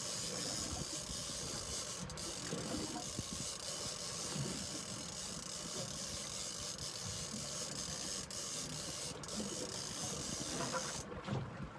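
Fishing reel's drag or clicker ratcheting steadily as line is worked, under a constant hiss of wind and water.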